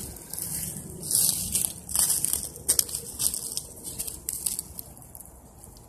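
Footsteps crunching and rustling through dry leaf litter, an irregular run of crackling steps that grows fainter near the end.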